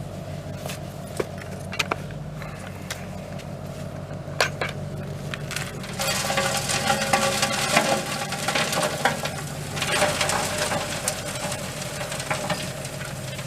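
Lumps of charcoal clattering and crackling as they are poured and shaken into a wood-gas gasifier's fuel hopper, after a few separate knocks, over a steady low hum.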